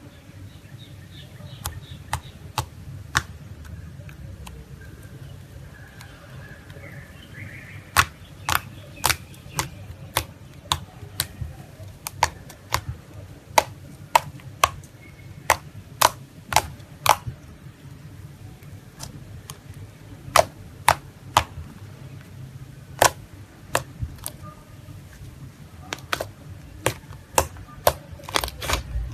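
Slime being squeezed and worked by hand, with sharp popping clicks from trapped air, irregular at roughly one or two a second and bunched together near the end.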